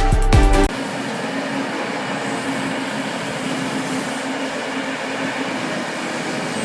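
Electronic music with a heavy bass cuts off less than a second in, giving way to the steady running noise of heavy diesel mining machinery, an even rumble with a faint hum.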